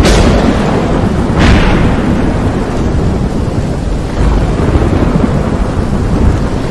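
Thunderstorm: a sharp thunderclap right at the start and another about a second and a half in, each fading into rolling rumble, over a steady hiss of rain.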